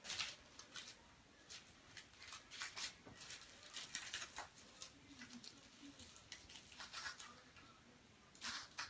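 Faint, irregular scratching and light patter of kittens' paws and claws as they scamper and play.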